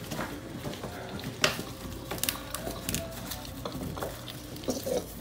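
Crinkly plastic rustling and scuffing from puppies moving about on a plastic-lined floor, broken by several sharp clicks; the loudest click comes about a second and a half in.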